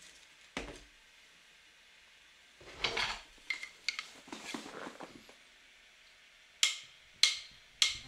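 Faint handling noise of a paper project file: a page turned over with paper rustling, and a few sharp taps and clicks, three of them close together near the end.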